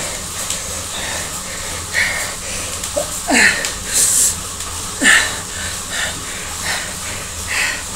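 A man panting hard on an indoor cycling trainer, with loud breath blasts about once a second, several carrying a short falling groan: gasping from a maximal low-cadence sprint effort. A steady low hum runs underneath.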